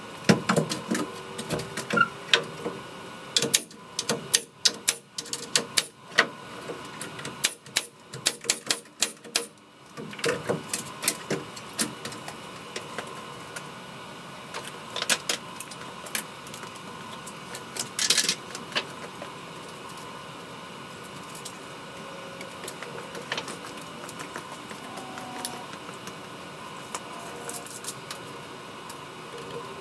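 Irregular sharp clicks and knocks, coming quick and dense for the first ten seconds or so, then scattered and sparser.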